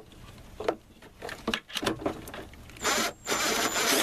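A few light clicks and knocks of a bolt and cable terminal being handled. Then, about three seconds in, a cordless power driver with a socket runs for about a second with a steady high whine, driving the ground bolt down against the plate.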